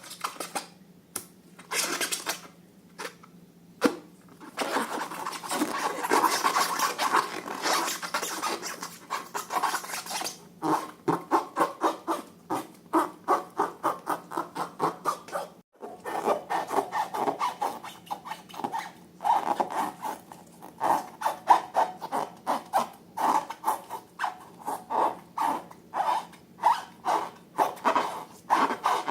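Slime being worked by hand with wet, rough rubbing and squishing: a few separate strokes, then several seconds of continuous kneading, then regular squeezes about two a second.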